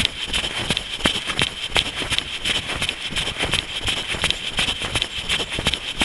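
A runner's footfalls in a steady rhythm, about three strides a second, over a constant background hiss.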